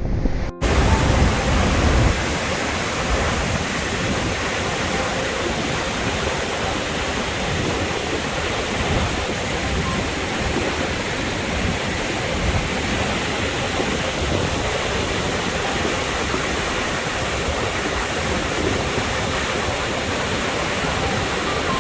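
Dettifoss waterfall, a massive glacial-river falls, heard as a steady, even rush of falling water with no change in level. It begins abruptly about half a second in, with heavier low rumble for the first couple of seconds.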